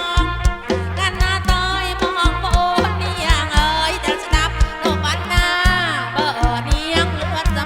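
Live kantrum band music through a loud PA: a wavering, ornamented voice or melody line over a steady drum beat and heavy bass.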